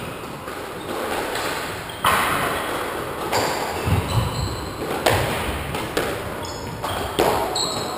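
Squash ball rally: sharp cracks of the ball striking rackets and the court walls, about seven in quick succession from about two seconds in, each ringing briefly in the enclosed court.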